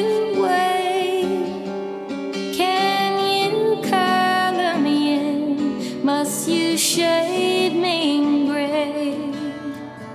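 Background song: a woman singing over acoustic guitar accompaniment.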